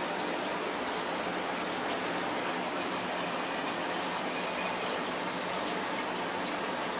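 Steady running and splashing of water from a turtle aquarium's filter, with a faint low hum underneath.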